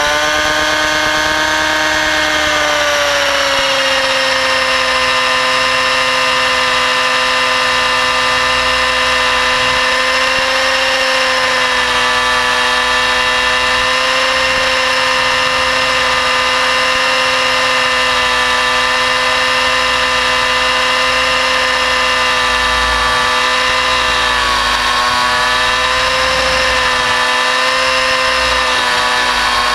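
A 600-size nitro RC helicopter in flight: its two-stroke glow engine runs at a steady high speed, with the whine of the spinning rotors and drivetrain. The pitch settles slightly lower about two seconds in and wavers a little near the end.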